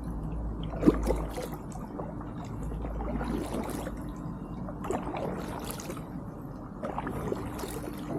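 Kayak paddle strokes: the blade splashes into the water every second or two and water trickles off it, over a steady low rumble.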